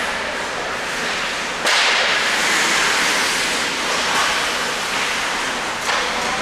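Hockey skates scraping and gliding on the ice, a hiss that starts suddenly about a second and a half in and holds steady for about four seconds.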